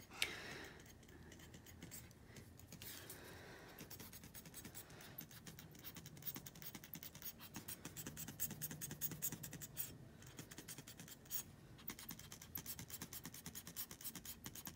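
Hand-squeezed rubber bulb air blower puffing air again and again over wet alcohol ink: a quick, uneven run of faint, short puffs.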